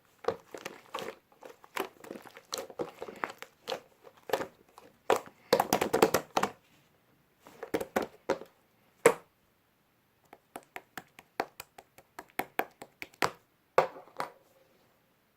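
Two-layer slime being squeezed and poked by hand: irregular clusters of sharp crackling clicks and pops, with brief pauses between handfuls.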